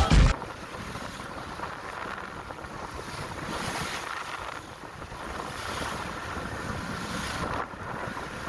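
Wind buffeting the microphone over the rush of choppy sea water from a boat under way, a steady noise with no distinct events.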